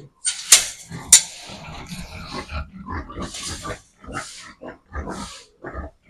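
Pigs in a pen grunting repeatedly, with two sharp, loud noises about half a second and a second in.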